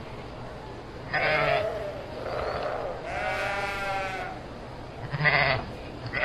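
Sheep bleating, several separate calls overlapping one another. The longest call, a wavering bleat of over a second, comes in the middle.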